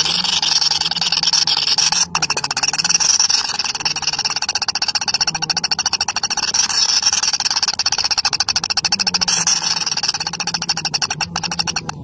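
Shrike nestlings begging: a continuous, fast, raspy churr of high-pitched calls.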